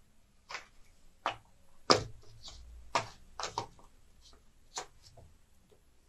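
Scattered light clicks and knocks, about nine in all with the loudest about two seconds in: oil pastel sticks being handled and set down in their plastic tray.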